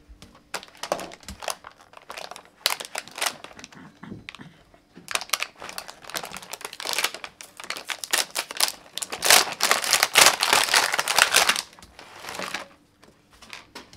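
Stiff plastic blister packaging of a toy gun set crinkling and crackling as hands work it open, in irregular spells that grow denser and louder from about halfway in, easing off near the end.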